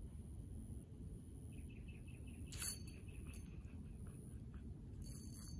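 Spinning reel and fishing rod being worked: a run of quick faint ticks, then a sharp click about two and a half seconds in and a few more clicks near the end, over a low steady rumble.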